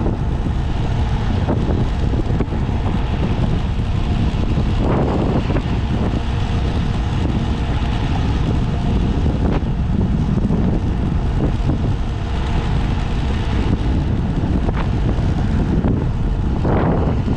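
Heavy wind buffeting on the microphone over a Honda Monkey 125 motorcycle's single-cylinder engine running on the move, with a couple of brief swells in the noise.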